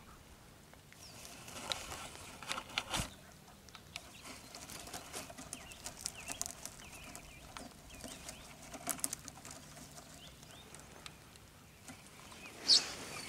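Birds calling around open water, ducks among them: scattered short chirps and a few quacking calls, with one louder, sharper call near the end.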